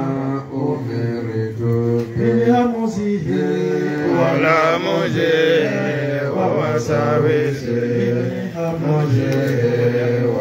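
A man's voice chanting in Arabic, a slow melodic recitation of long held, ornamented notes in the manner of Qur'an recitation.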